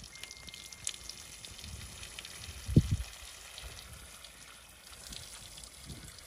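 Boiled rice and its starchy water pouring and dribbling out of a large aluminium pot onto a cloth, a wet, splashy pour as the rice is tipped out to drain. A dull thump about three seconds in.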